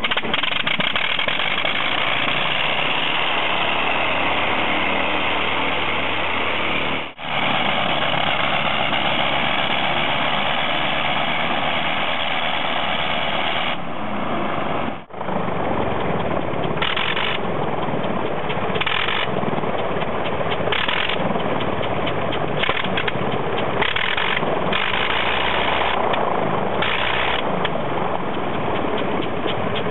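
80 hp Le Rhône nine-cylinder rotary aero engines running with propellers turning. The sound cuts out briefly twice, about seven and fifteen seconds in, as one engine run gives way to another.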